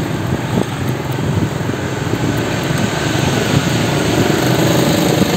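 Wind rushing over the microphone of a camera carried on a moving bicycle, mixed with the engines of street traffic; the noise grows slightly louder toward the end.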